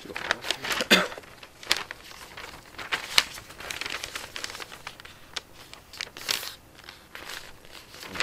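Paper rustling and crinkling as sheets are handled and sorted, with irregular sharp clicks and knocks, the loudest at the start and about a second in.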